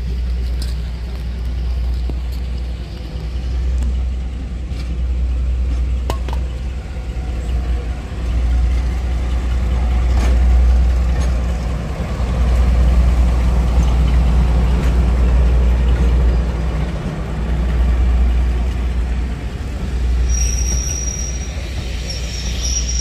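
Diesel locomotive running with a heavy, pulsing low rumble. A steady high-pitched squeal starts near the end.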